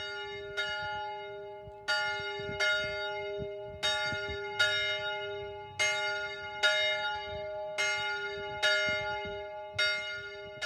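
Church bell tolling, struck in pairs about every two seconds, with each stroke ringing on into the next.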